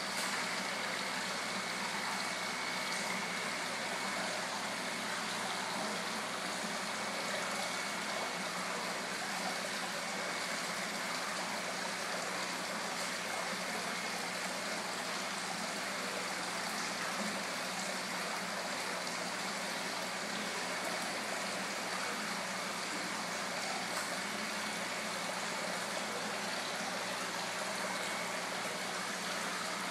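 Steady rush and splash of water from an indoor koi pond's jet and waterfall return pouring back into the pond.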